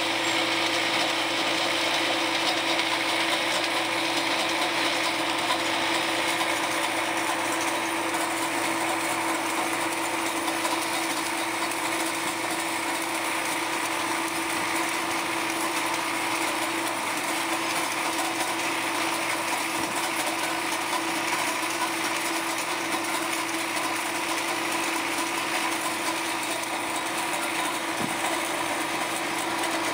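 Hinged rotary ice cutter on an MTZ-82.1 tractor milling ice off a road surface: a steady mechanical clatter and grind, over the tractor's diesel engine running with a steady hum.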